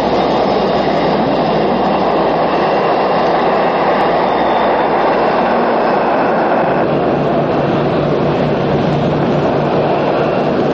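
Jet airliner engines running, a steady rushing noise with a faint high whine over it.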